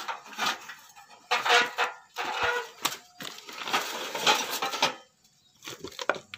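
Rusty steel pipes clinking and knocking against one another and their steel frame as they are shifted by hand, in an irregular run of metallic knocks that pauses briefly near the end.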